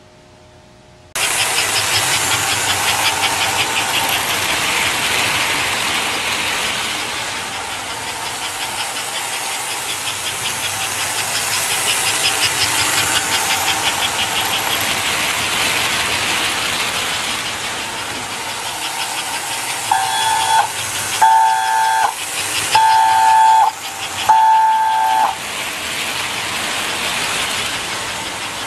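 1958 American Flyer S-gauge toy train running on its track with a steady, fast rhythmic clatter and hiss that comes in suddenly about a second in. Near the end its whistle blows four times in a row, each blast a little longer than the last.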